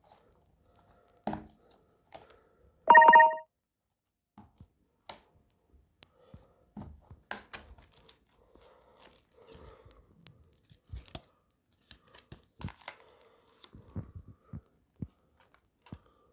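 Scattered clicks, knocks and rustling handling noises, with one short loud electronic beep about three seconds in.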